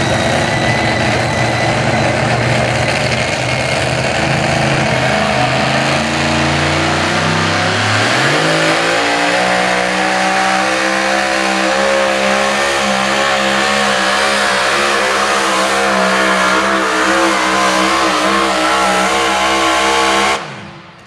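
Two-wheel-drive pulling truck's racing engine at full throttle, dragging a weight-transfer sled down the track. Its pitch climbs from about six to nine seconds in, holds high and steady, then cuts off suddenly near the end.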